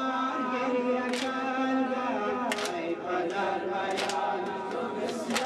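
A group of voices chanting a Muharram mourning chant (noha) in unison, holding long notes, with a sharp beat in time about every second and a half.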